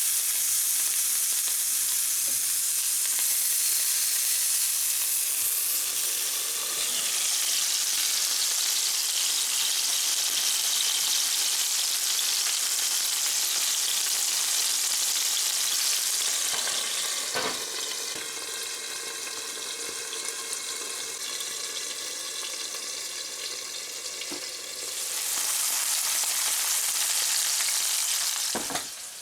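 Food sizzling and frying in a hot pan, a steady hiss that weakens for several seconds midway, then comes back before falling off near the end.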